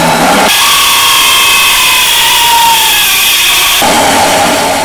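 Cordless drill driving a large hole saw into a downspout: the hole saw grinds and squeals as it cuts from about half a second in until nearly four seconds, then the drill spins on freely.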